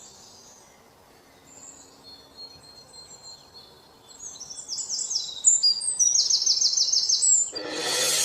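Birds chirping: quiet at first, then rapid runs of high chirps from about four seconds in. A louder rush of noise comes in near the end.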